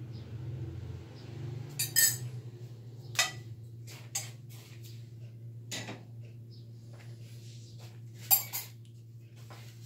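Metal spoon clinking against a saucepan and a ceramic mug, in about six sharp knocks, the loudest about two seconds in and again near the end, over a steady low hum.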